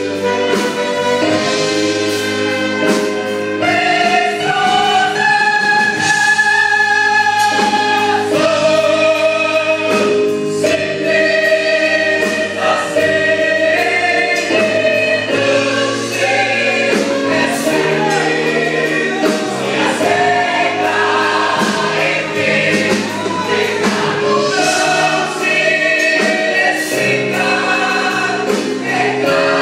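A youth choir singing a Portuguese gospel hymn with instrumental accompaniment, sustained sung notes over a steady bass and a regular beat.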